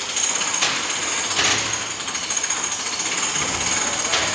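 Steady mechanical rattling with a thin high whine, like a power tool or machine running, with a few short rushes of noise over it.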